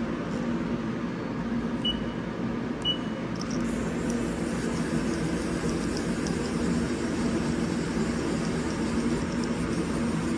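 Steady hum of a CNC mill and shop ventilation, with two short high beeps about a second apart, near two and three seconds in.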